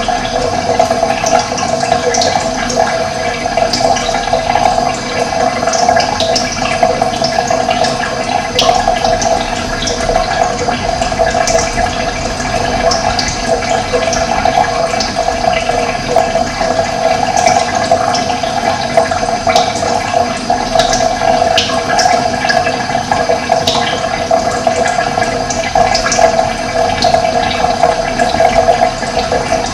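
Running water rushing steadily, with short high bird chirps scattered throughout.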